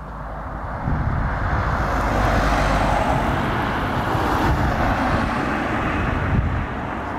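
Road traffic going by: a steady rushing noise of engines and tyres that swells about a second in.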